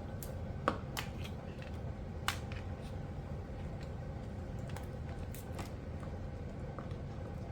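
Small scattered clicks and crackles of hardened layout scenery being pried and scraped up with a hand tool, with two sharper clicks in the first few seconds, over a steady low hum.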